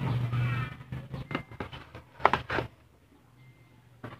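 A passing motor vehicle's engine hum fades out within the first second. About two seconds in come two sharp clicks, a quarter-second apart, from the analog multimeter and its probes being handled on the workbench.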